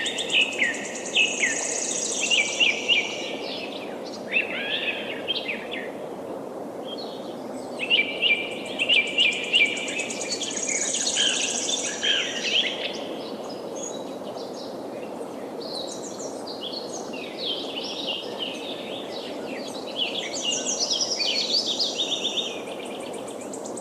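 Several songbirds singing in overlapping bursts of quick chirps and trills over the steady rush of flowing river water.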